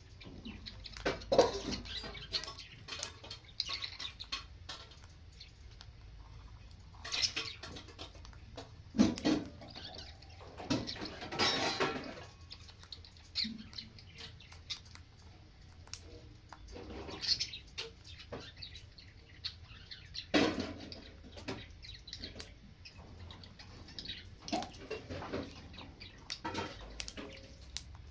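A pet parrot making short, scattered chirps among irregular clicks and taps.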